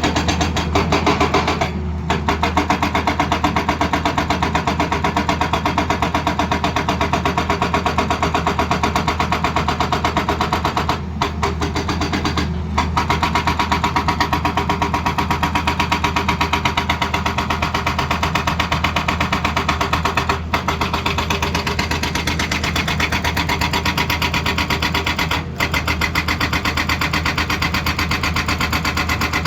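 Excavator-mounted hydraulic rock breaker hammering stone: a rapid, steady train of blows over a low, steady engine hum, with a few brief breaks.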